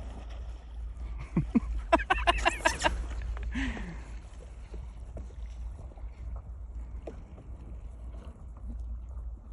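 A steady low rumble, with a short burst of a person's voice in quick pulses about two seconds in, followed by a brief falling vocal sound.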